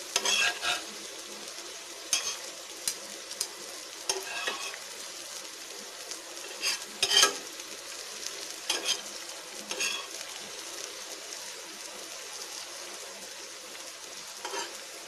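Sliced boiled eggs sizzling in oil on a dosa tawa, with a steel spatula scraping and clinking against the griddle every second or two as it turns them. The loudest scrape comes about seven seconds in.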